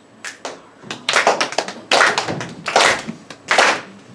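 A group of hands clapping together, ragged at first and then settling into a slow, steady beat of just over one clap a second.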